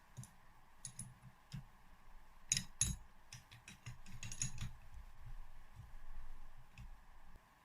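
Scattered light metallic clicks and taps of a hand tool tightening the cylinder barrel's base nuts on a Yamaha DTR125 two-stroke engine. Two sharper clicks come about a third of the way in.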